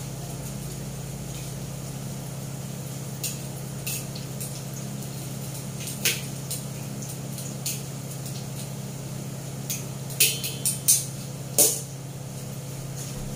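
Metal utensils tapping and scraping against a wok while potatoes are stirred as they fry: scattered clinks, with a cluster of louder ones near the end, over a steady low hum.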